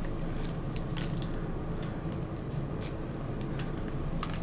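Whole spices (fenugreek, cumin, crushed coriander seed and chillies) sizzling in hot mustard oil in a kadhai: a steady hiss with scattered sharp crackles.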